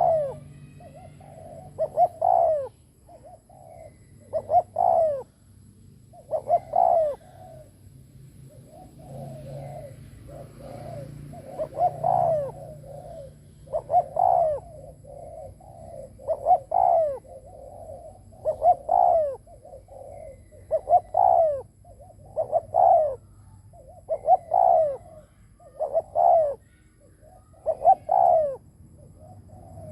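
Spotted dove (decoy bird) giving its bowing display coo to provoke wild doves: a rolling coo phrase ending in a loud falling note, repeated about every two seconds, with a short pause near the middle.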